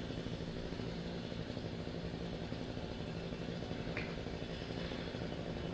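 Steady low electrical or fan hum with a constant low tone, and a faint single click about four seconds in.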